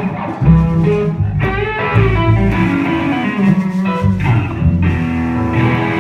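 Guitar playing a bluesy riff over low bass notes, a band jamming live during a soundcheck.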